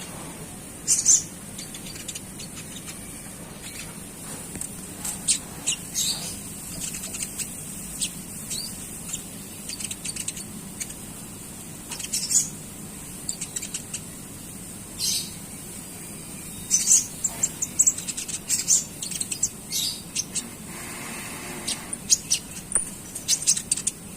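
Konin songbird twittering in short, sharp, high-pitched chirps, scattered irregularly and coming thicker near the end, over a steady background hiss.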